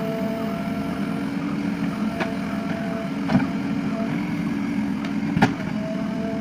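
JCB 3DX backhoe loader's diesel engine running steadily under load as the backhoe arm digs, lifts and swings, with a hydraulic whine that comes and goes. A few sharp metallic clunks from the arm and bucket, the loudest about five seconds in.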